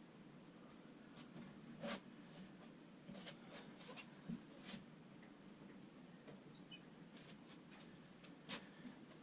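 Faint scattered clicks and light taps of small wooden segments and the gluing jig being handled while segments are glued on one by one, with a few brief high squeaks past the middle, over a low steady hum.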